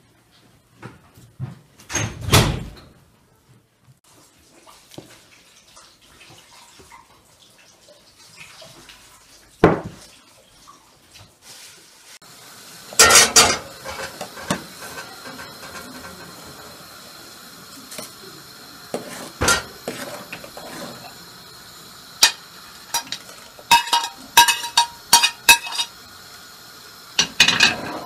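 Kitchen work: a few knocks on a wooden board as dough pieces are handled, then a large aluminium pot at a steady boil, with a loud clatter about 13 seconds in. Near the end a metal ladle clinks and scrapes against the pot as julienned carrots are stirred in the boiling water.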